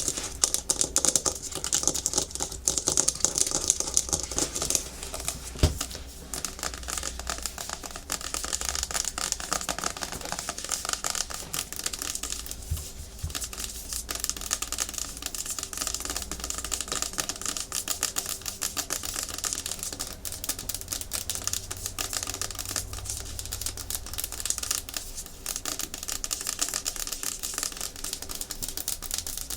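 Natural fingernails tapping and scratching fast and hard on a hard plastic surface: a dense, rapid run of sharp clicks with scraping between them.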